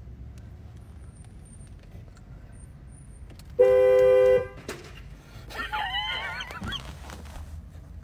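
A car horn honked once, a steady two-note blare lasting under a second, heard from inside the car's cabin. A second or so later a person gives a startled, high-pitched wavering yelp.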